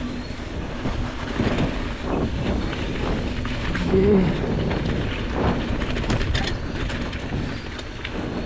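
Wind buffeting the microphone and mountain bike tyres rolling over a rough, muddy dirt track, with frequent rattles and knocks from the bike over bumps.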